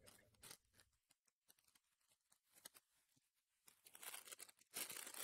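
Near silence with faint ticks of cards being handled, then from about four seconds in the faint crinkle and tear of a foil trading-card pack wrapper being pulled open.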